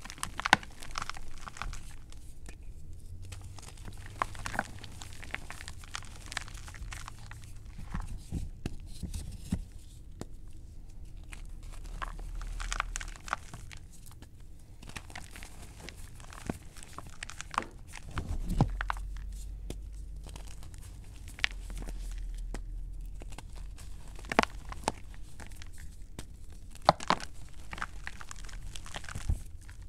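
Chunks of gym chalk crushed and squeezed by hand in a plastic bowl of loose chalk powder: irregular crumbling crunches and crackles, with a few louder sharp cracks.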